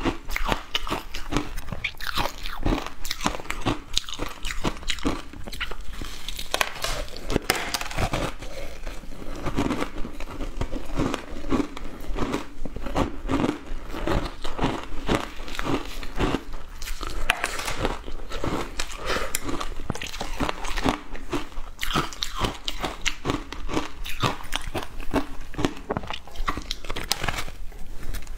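Shaved ice dusted with milk powder being bitten and chewed right at a clip-on microphone: a dense, uneven run of crisp icy crunches.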